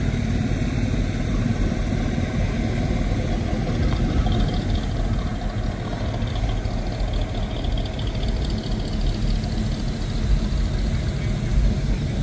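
Classic Chevy C10 pickup trucks' engines running steadily at idle.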